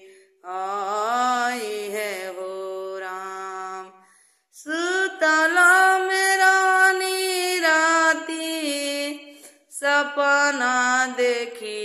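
A woman singing a Bhojpuri devotional bhajan unaccompanied, in long held, gliding notes. Three phrases with brief gaps between them, about four seconds in and near the end.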